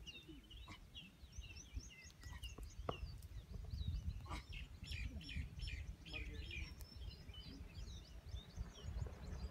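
Many small birds chirping in quick, short, high calls, over a low steady rumble, with a few faint clicks.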